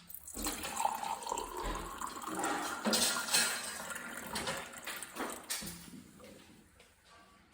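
Running water, starting abruptly and dying away over the last two seconds or so.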